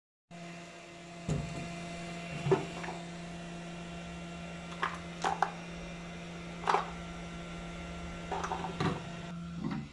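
A steady electrical hum runs under a handful of light clicks and knocks as a plastic headlight and turn-signal housing is handled, and the hum cuts off near the end.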